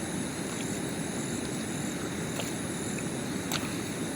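Steady rush of flowing river water, with a constant high-pitched drone of night insects over it and a faint click about three and a half seconds in.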